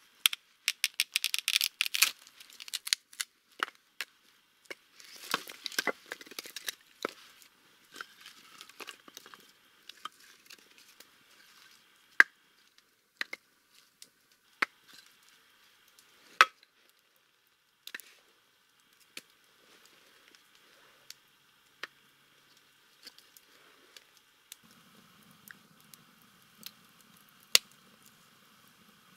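A wood campfire crackling, with sharp single pops every second or two. Near the start there is a quick burst of tearing and crinkling, and more handling noise a few seconds later, as kindling is handled and fed onto the fire.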